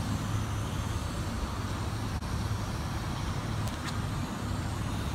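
Steady low background rumble with an even haze of noise and no distinct events.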